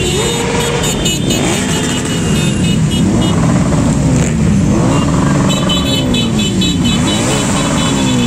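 Several motorcycle engines running and revving together as a group of bikes rides past, their pitches rising and falling over one another.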